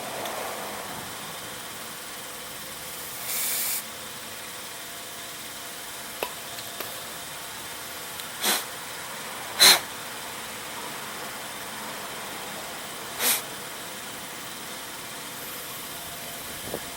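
Short hissing blasts of brake cleaner spray and compressed air shot through the passages of a small-engine carburetor being cleaned: one about half a second long near the start, then three brief sharp blasts in the middle, with a couple of faint ticks between them.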